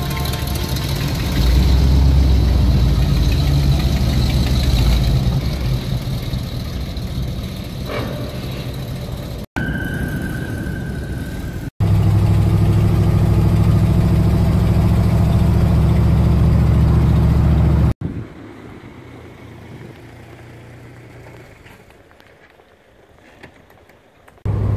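Ford F-250 pickup's engine running as the truck moves off and drives along. It comes in short stretches that cut off abruptly: loudest in the middle, much quieter for the last several seconds.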